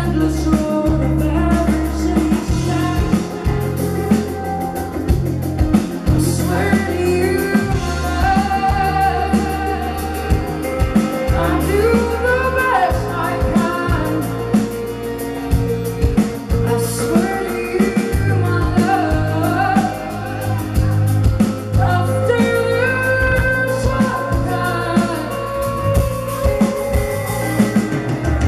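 Live rock band performance: a woman singing lead over drum kit, guitar and steady bass notes.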